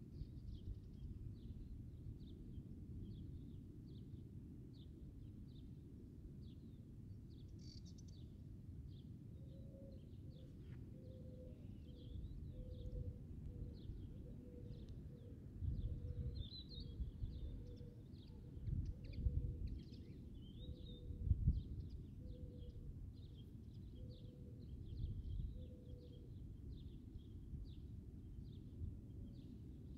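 Wind rumbling on the microphone, gusting louder several times in the second half, over a steady scatter of short, high chirps. Through the middle a faint low note repeats about once a second.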